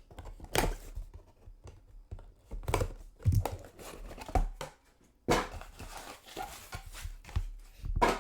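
Plastic trading-card pack wrapper crinkling and tearing as it is opened by hand, in irregular rustles and scrapes, the longest about five seconds in.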